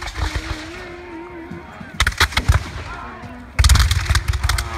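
Reenactors' flintlock muskets firing blank charges: a few scattered shots about two seconds in, then a ragged volley of many shots near the end.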